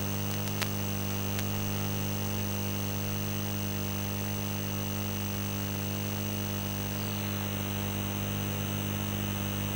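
Steady electrical mains hum from a turntable's playback chain after the record has ended, with a low hum and a stack of higher steady tones. One sharp click about half a second in, as the turntable's controls are handled.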